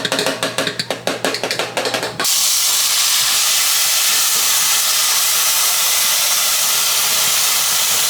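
Rapid clicking and clattering, then, about two seconds in, a loud steady sizzle starts suddenly as a chopped vegetable mixture goes into hot olive oil in a frying pan.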